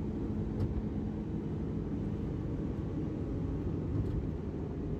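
Steady low rumble of engine and tyre noise inside a car cruising at highway speed.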